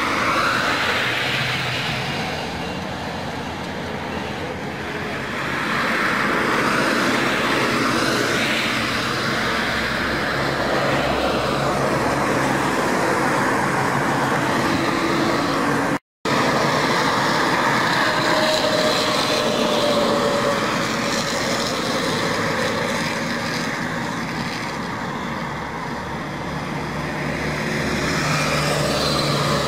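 Highway traffic: steady engine and tyre noise of road vehicles, swelling and easing as they pass, with a split-second break in the sound just past halfway.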